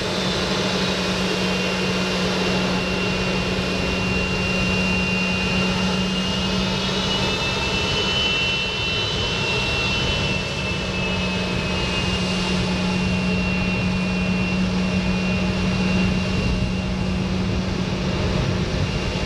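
Embraer ERJ-145-family regional jet's two rear-mounted turbofans running at taxi power: a steady high whine over a low hum. The whine rises a little about halfway through and then settles back.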